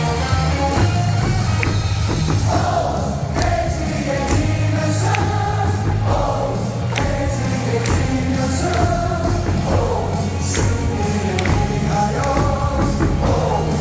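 Music over a baseball stadium's loudspeakers, with a large crowd of fans singing along in unison.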